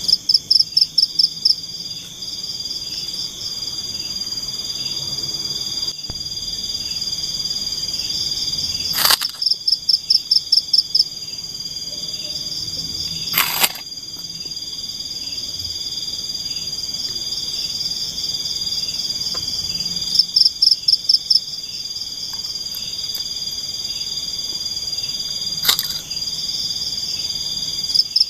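Tropical forest insect chorus: a steady, high, shrill drone, with a louder rapidly pulsing insect call breaking in four times in trains of about two seconds. Three sharp clicks are also heard.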